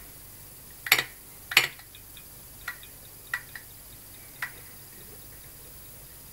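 A few sharp clicks and knocks from hand handling of the pulse motor rig: two loud ones in the first two seconds, then four fainter, irregular ticks. A faint, steady high-pitched whine runs underneath.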